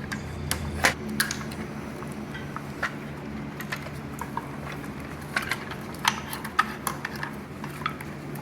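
Irregular sharp metallic clinks and taps of hand tools working on a pulled engine, over a steady low hum.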